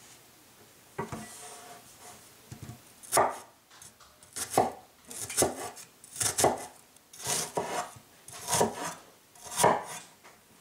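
A Chinese-style cleaver slicing through a raw onion onto a bamboo cutting board. There are slow, even strokes, roughly one a second from about three seconds in, each a crisp crunch ending in a knock of the blade on the wood. A single lighter knock comes about a second in.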